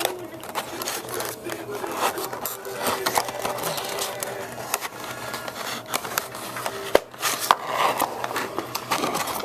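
A cardboard model-aircraft box being worked open by hand: the flaps rubbed and bent back and the clear plastic inner tray scraped and slid out, a steady rustling and scraping with many small clicks and knocks, the sharpest about seven seconds in.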